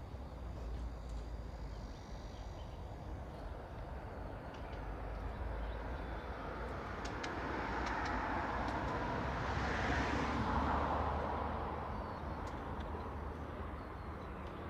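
Street traffic: a vehicle passes, its tyre and engine noise swelling to a peak about ten seconds in and then fading, over a steady low rumble.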